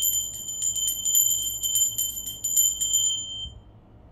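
A small metal bell rung rapidly, about eight quick strikes a second over a high, bright ringing tone, stopping about three seconds in and then dying away.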